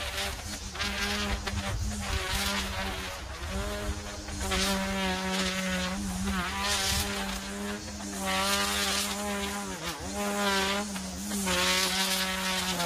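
Gas string trimmer running at high revs, edging along a curb through dry grass. Its whine dips briefly and comes back up a few times as the throttle is eased and opened again.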